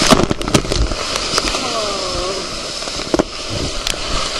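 Water rushing and splashing over a camera riding down a water slide, with many sharp crackling knocks as spray and water strike the camera and its microphone.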